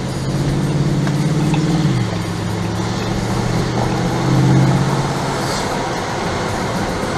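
Bentley Continental GT V8 S's 4.0-litre twin-turbo V8 with sports exhaust running at low, steady revs while driving. The engine note dips slightly about two seconds in, then swells briefly louder around four and a half seconds.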